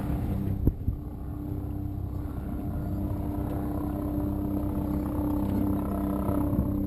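Motorboat engine idling, a steady low hum. A single brief thump about two-thirds of a second in.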